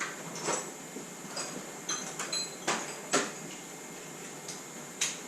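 Metal hand tools clinking and clicking as a torque wrench and socket are readied to tighten the cylinder head bolts. About eight sharp metallic clicks, a few with a brief ring, the loudest about three seconds in.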